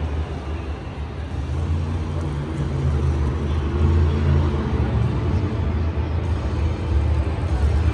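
A motor vehicle's engine running, a steady low rumble with a fainter wash of noise above it.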